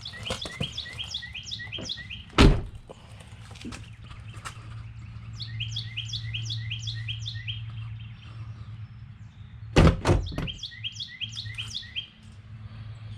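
Shaved door's door popper clunking as it is triggered from the new push-button switch: one sharp knock about two and a half seconds in, then two more in quick succession near the end. A bird sings a short repeated chirping phrase three times in between, over a low steady hum.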